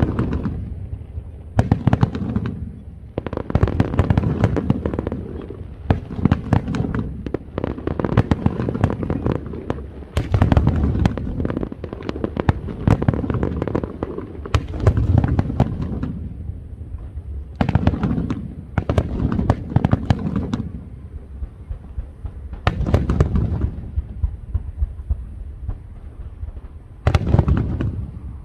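Fireworks going off in volleys of dense, rapid bangs and crackling, each lasting a few seconds, with short lulls between them.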